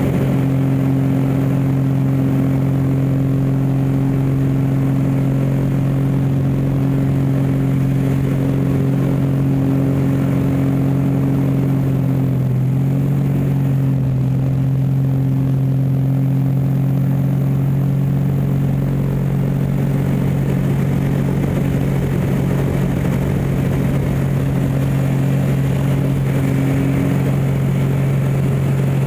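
Aerobatic biplane's piston engine and propeller running steadily at high power, heard from inside the cockpit. The pitch dips and wavers briefly about twelve seconds in, then steadies again.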